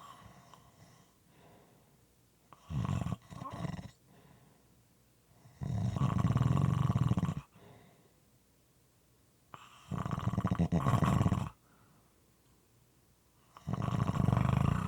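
Moist, irregular snoring: first a short snore broken into two snorts, then three longer snores of about two seconds each, coming roughly every four seconds.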